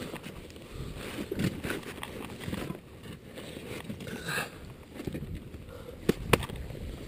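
Climber's gloved hands and boots scraping and crunching on snow and granite while scrambling, over a steady low rumble. Two sharp knocks a little after six seconds in.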